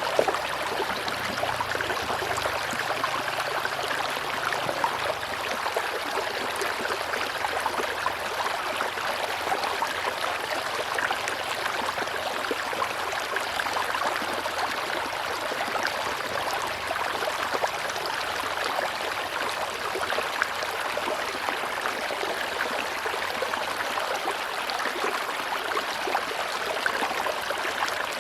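A river's water rushing steadily, an even flowing hiss with no pauses.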